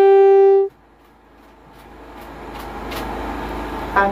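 A loud, steady, single-pitched horn-like tone that cuts off abruptly less than a second in. Quiet background sound then fades back up, with a short click near the end.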